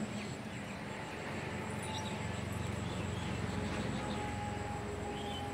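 Steady low rumble of outdoor background noise, like distant traffic, with a few faint high chirps scattered through it.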